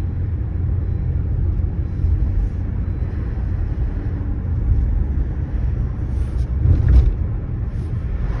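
Low, steady rumble of a car in motion heard from inside the cabin, with a few faint clicks and a brief louder swell about seven seconds in.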